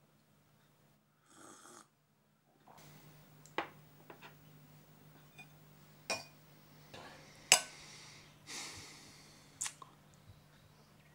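Steak knife and fork clinking and scraping against a ceramic bowl while cutting bacon: a handful of sharp clinks, the loudest about seven and a half seconds in. A person breathes heavily twice, once about a second and a half in and again near the end.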